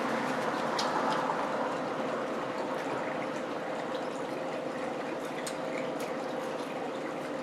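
Steady hissing background noise with a faint continuous hum and a few light clicks.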